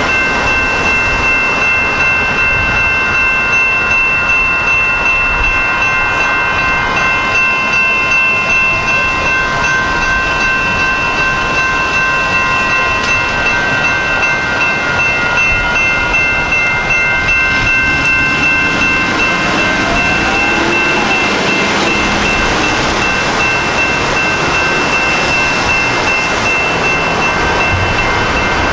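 Several grade crossing warning bells ringing together in a steady, rhythmic clang. In the second half a Gold Line light rail train passes through the crossing, heard as a rising rumble under the bells.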